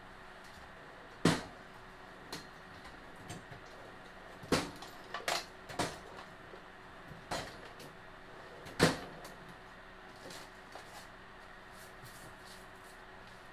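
Scattered knocks and clanks of tools and parts being handled during engine assembly work: about half a dozen separate sharp strikes, the loudest about a second in and again near nine seconds.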